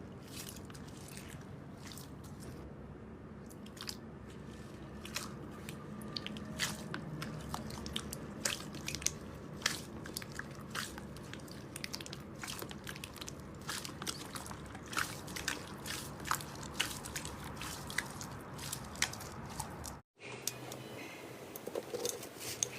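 Slime being squished and worked by hand, with many small sharp crackles and pops. About 20 s in it breaks off for an instant and goes on with a different, softer squishing.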